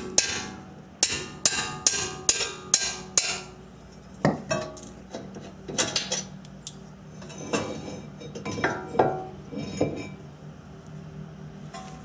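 A 3-pound hammer strikes a 17 mm wrench on a caliper-bracket bolt about seven times in the first three and a half seconds, each blow a sharp ringing clang, breaking the tight bolt loose. Scattered lighter metal clinks follow as the bolt and bracket are handled.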